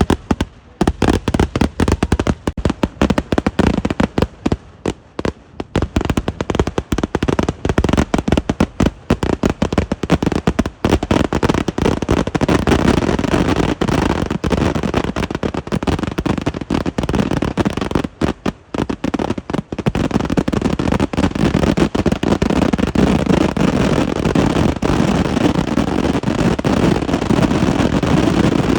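Kerala temple-festival fireworks (eeduvedi): a rapid, unbroken string of firecracker bangs that grows denser until the explosions merge into one continuous rumble, with a short lull about eighteen seconds in.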